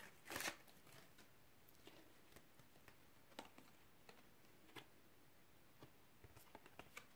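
Near silence: room tone with a brief faint rustle just after the start and a few faint, scattered clicks.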